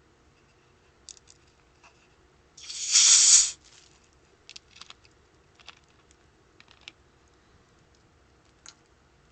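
A Dr Pepper soda being opened: one loud hiss of escaping carbonation lasting about a second, a few seconds in. Light clicks and taps of handling the container come before and after.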